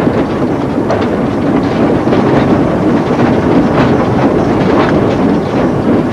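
Steam-hauled train running at speed behind Midland Compound 4-4-0 No. 1000: a steady rumble with wheels clicking over the rail joints.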